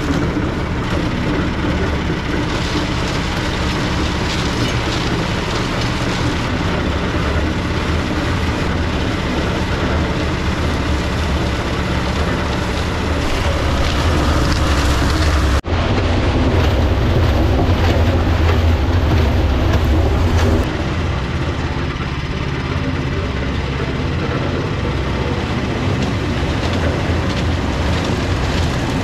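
Multiquip portable cement mixer running, its drum turning and tumbling concrete mix in a steady mechanical hum with a gritty wash over it. About halfway through the sound breaks off abruptly and comes back louder and deeper for a few seconds before settling again.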